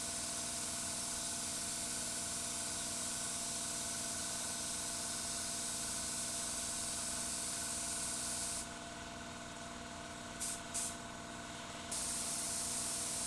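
Compressed-air spray gun spraying primer with a steady hiss. About two-thirds through, the hiss stops for about three seconds, broken by two short blips, then starts again; a steady hum runs underneath.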